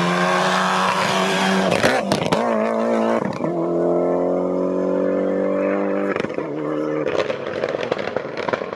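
Rally car engine at full throttle, its pitch climbing, with a brief break and a few sharp cracks at a gear change about two seconds in. It pulls up through the revs again in the next gear and fades away after about six seconds.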